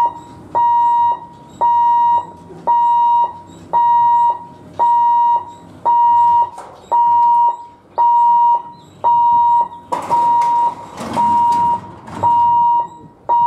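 Railway level-crossing warning alarm beeping a single steady tone about once a second, each beep about half a second long. A rush of noise joins it a little past the middle.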